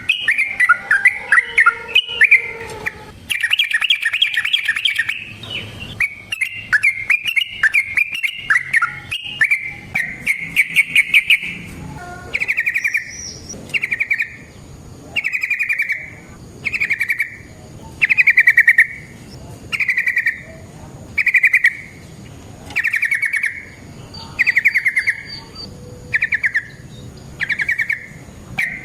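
Yellow-vented bulbul (trucukan) singing loud, fast chattering and trilling phrases. From about twelve seconds in it settles into short rattling bursts about every second and a half, the rapid 'ropel' song used to lure and provoke other trucukan.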